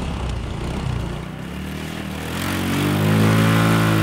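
150cc GY6 scooter engine of a Yerf Dog Spiderbox off-road go-kart running. About halfway through it revs up and holds at higher revs, getting louder.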